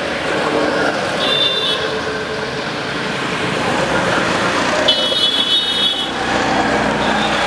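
Road traffic passing close by, with engines running. A vehicle horn beeps briefly about a second in and again for about a second near the middle.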